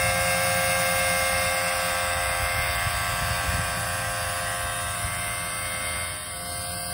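Small electric water transfer pump running steadily under load, a motor hum and whine, pumping water through a garden hose. It gets a little quieter near the end.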